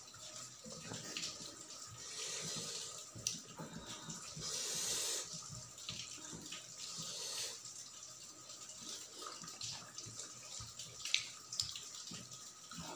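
Wet, squishy sounds of a bare hand kneading and mixing rice with potato gravy on a steel plate, irregular and sticky. There is a louder rushing stretch about four to five seconds in, and a couple of sharp clicks.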